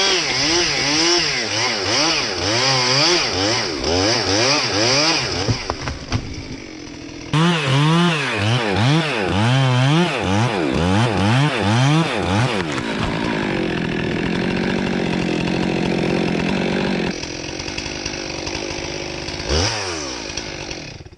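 Chainsaw engine revving up and down over and over, about one to two revs a second, then held at a steady high speed for a few seconds as it cuts. The sound jumps abruptly twice where separate shots are joined.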